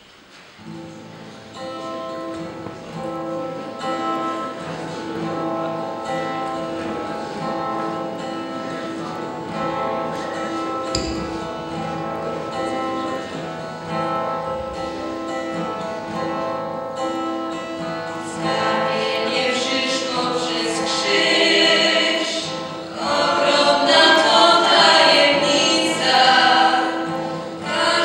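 Music with sustained instrumental tones starts about a second in. About two-thirds of the way through, a small group of young singers comes in with a song over it, growing louder near the end.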